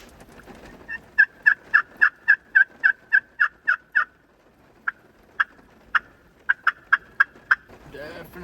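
Turkey hen yelps from a hunter's turkey call: a run of about a dozen evenly spaced, sharp yelps, then a few more scattered ones, sent out to draw a response from a gobbler.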